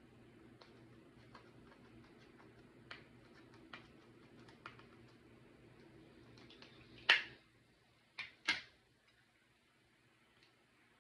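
Light taps and clicks of a clear plastic scraper and plastic pots against a glass bowl of slime and the tabletop, with three sharper clacks between about seven and eight and a half seconds in.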